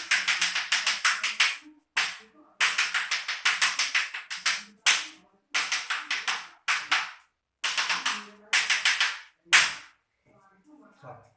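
Hands rapidly slapping a person's body as percussion massage for a cough, in quick runs of about eight slaps a second separated by short pauses. The slapping stops about ten seconds in.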